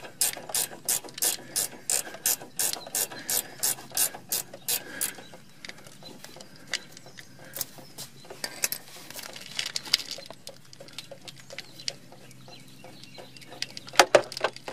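Ratchet wrench clicking steadily, about three or four clicks a second, as it backs out the brake hose's banjo bolt. The clicking stops about five seconds in. Lighter, irregular clicks and metal taps follow, with two sharper clicks near the end.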